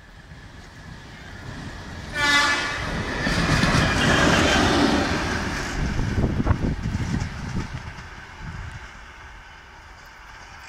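Locomotive sounding one short horn blast about two seconds in, then passing close by with its engine rumbling and wheels knocking on the rails. The sound fades as it runs away.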